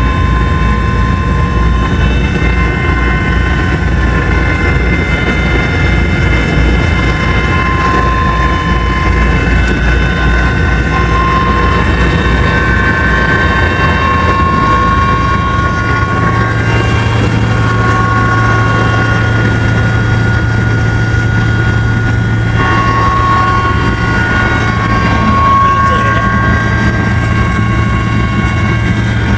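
Helicopter running loud and steady: a low rotor pulse under a steady turbine whine. About halfway through, the low pulsing gives way to a steadier, slightly higher hum.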